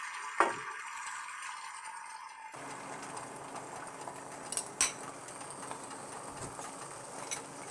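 Beaten eggs frying in hot olive oil in a cast-iron skillet as they are poured in: a steady low sizzle that fills out after a couple of seconds. A metal fork clinks sharply against the bowl about half a second in, with a few more clinks around five seconds and near the end.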